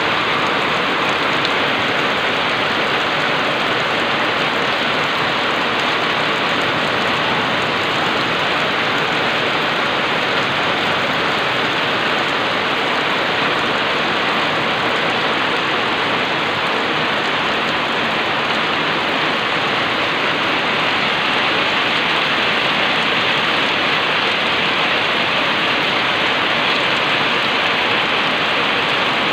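Heavy rain falling steadily on a wet paved road and leafy plants, a dense, even hiss that holds the same level throughout.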